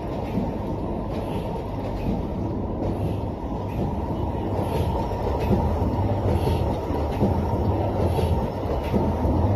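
Automatic servo screen printing machine running: a steady mechanical rumble, with a faint hiss-like sound repeating a little more often than once a second as it cycles.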